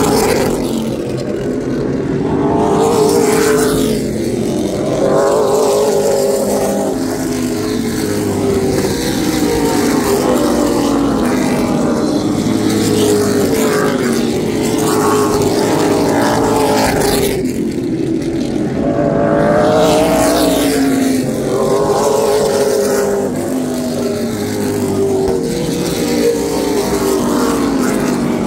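Race car engines at speed, several cars together. Their pitch climbs and then drops off again every few seconds, as the cars accelerate and lift.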